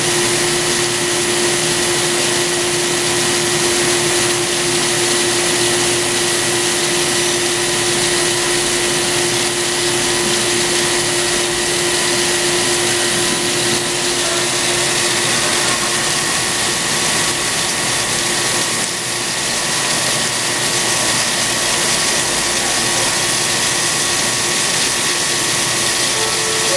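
CNC cylindrical grinder doing a straight grinding pass on a metal shaft held between centres, with coolant splashing onto the work. A steady machine noise with a constant whine, unchanging throughout.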